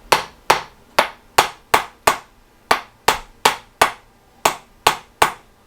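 Chiropractic tapping on the joints under the pelvis to loosen them: a steady series of about a dozen sharp clicking taps, two to three a second, with a few brief pauses between groups.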